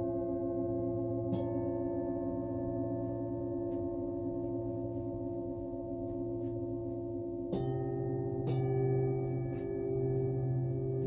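Singing bowls ringing with long, overlapping sustained tones. A bowl is struck with a mallet about a second in and again after about seven and a half seconds, each strike adding new tones. From about eight and a half seconds the lower tones waver slowly.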